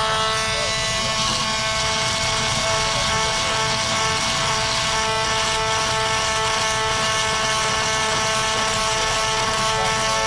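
Oscillating multi-tool with a triangular sanding pad running steadily, sanding the damaged plastic bow of a kayak: a steady motor whine over the scratchy rasp of sandpaper on plastic.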